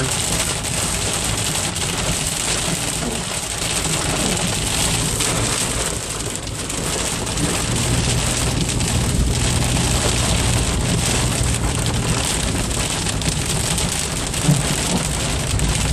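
Heavy rain drumming steadily on a car's roof and windshield, heard from inside the cabin, with the hiss of tyres on the flooded road beneath it.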